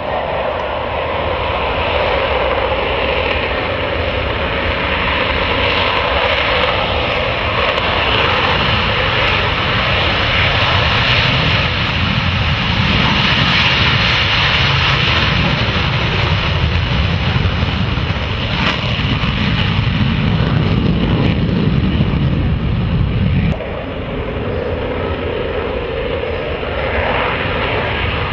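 F/A-18 fighter jet engines at takeoff power: a loud, steady jet noise that grows heavier and deeper in the middle, drops suddenly about 23 seconds in, and builds again near the end.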